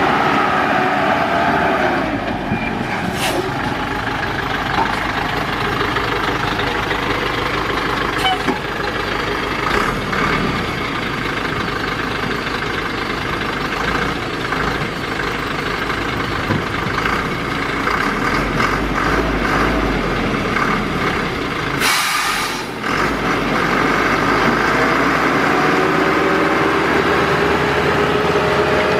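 Thaco Forland dump truck's diesel engine running as the truck manoeuvres, with a short burst of air hiss about three-quarters of the way through. Near the end the engine note rises steadily as it drives the hydraulic tipper that lifts the loaded bed.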